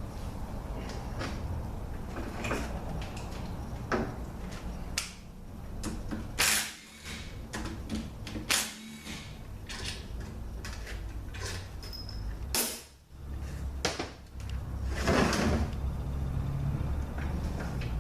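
Metal transmission parts clinking and clunking as the B2 drum assembly of a Mercedes 722.6 automatic transmission is unbolted and worked out of the case, with a few sharper knocks and a scraping stretch near the end, over a steady low hum.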